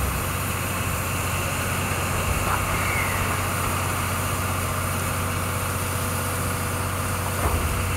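Railway turntable slowly turning a C58 steam locomotive: a steady low hum with an even hiss over it.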